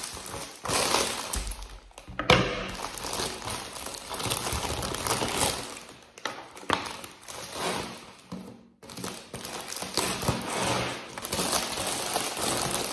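Shiny printed plastic wrapper of a Bauli chocolate Easter egg crinkling and rustling as it is handled and pulled off by hand, with a sharp crackle a little over two seconds in and a brief pause near nine seconds.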